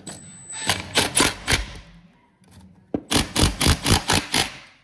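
Milwaukee M18 FID2 cordless impact driver hammering a 6 mm concrete screw with a washer home, in two bursts of rapid rattling impacts: a short one about half a second in, and a longer one from about three seconds in that stops as the screw pulls tight.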